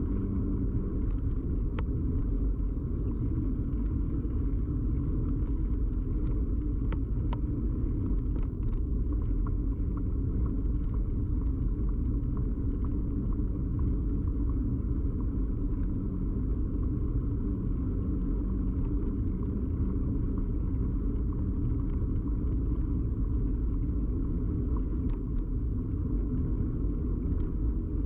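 Steady rumble of a bicycle ride picked up by a camera fixed to the bike: tyre and frame vibration carried into the mount, with a few small clicks scattered through it.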